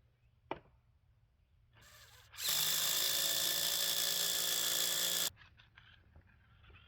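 Power tool running at a steady speed for about three seconds with an even, pitched whine, then stopping abruptly. It is preceded by a single click and followed by a few faint clicks.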